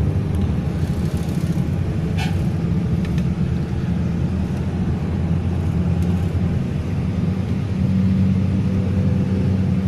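Car driving, heard from inside the cabin: a steady low drone of engine and road noise, with a few faint ticks now and then.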